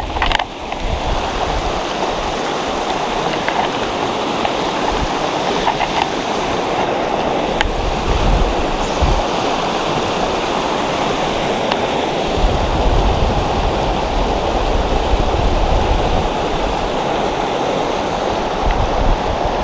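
White water of a shallow mountain-river riffle rushing and splashing over rocks close to the microphone: a loud, steady rush.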